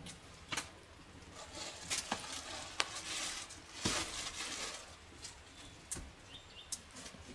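Open wood campfire crackling, with scattered sharp pops over a soft hiss. A louder stretch of rustling noise comes about three to four seconds in.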